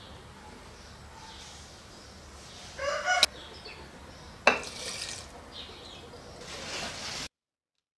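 Liquid poured from a small glass jar into a glass jar of stones, beginning with a splash about four and a half seconds in. Before it come a short pitched squawk and a sharp clink about three seconds in. The sound cuts off abruptly near the end.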